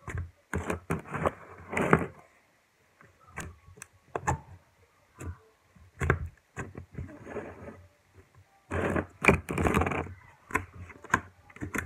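Homemade slime being pressed, pulled and slapped against a tabletop by hand, giving irregular clicks and squishy pops, with a denser, louder run of them about nine seconds in.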